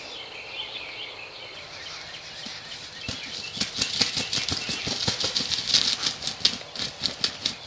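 Wild turkey flapping its wings: a quick, irregular run of rustling flaps and thumps that starts about three seconds in and keeps going. It fits a gobbler jumping a decoy.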